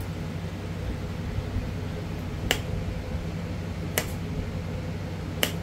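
Three sharp clicks about a second and a half apart as flakes pop off a thin Florida coral arrowhead preform being worked with a knapping tool.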